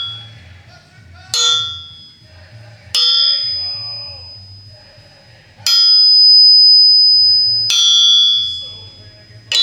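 Crankshaft of a 1958 Oldsmobile 371 V8 struck four times, each strike ringing out in a clear, bell-like chime that fades over a second or two. It is a ring test for cracks: each throw chimes cleanly, a sign that the crankshaft is not cracked.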